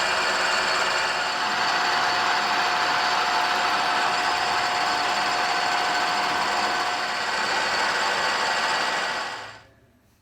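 Edgewick gap-bed lathe running under power with a steady whine, no cutting, then switched off about nine seconds in and winding down over half a second.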